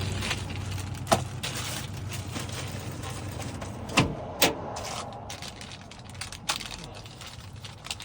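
A steady low hum with a few sharp clicks and knocks, two of them close together about four seconds in.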